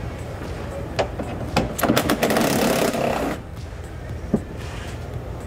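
Cordless drill spinning for about a second and a half, backing out a screw-type clip from the plastic underbody cover, with a few sharp clicks of handling before it and one after.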